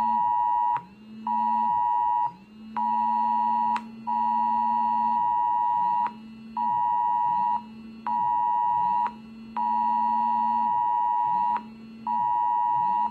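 Smartphone emergency alert tone: a loud two-pitch beep sounding in pulses of about a second with short gaps, with a lower buzz in step with each pulse. It is the attention signal for a disaster-management warning of lightning strikes in the area.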